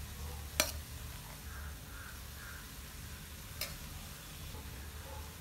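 Cooked rice being ladled into an iron kadai of vegetables frying faintly, with two sharp clicks about three seconds apart as the steel ladle knocks against the pan. A steady low hum lies underneath.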